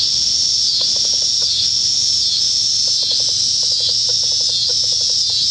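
Loud, steady high-pitched insect chorus drone that swells and dips slightly about every half second. Short runs of rapid faint low clicks come about a second in and again between three and five seconds.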